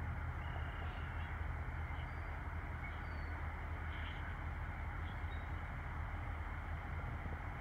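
Diesel freight locomotive approaching slowly, its engine a steady low rumble under an even haze of noise. A few faint, short high chirps sound now and then.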